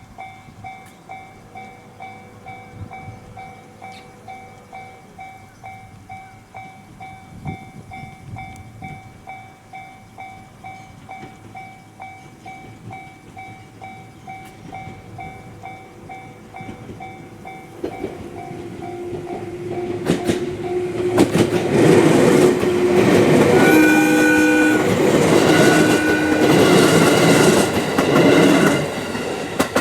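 Railway level-crossing warning bell ringing in steady repeated dings, just under twice a second, then stopping. An electric train then passes over the crossing loudly, with wheel clatter and rumble. Two horn blasts sound in the middle of the pass.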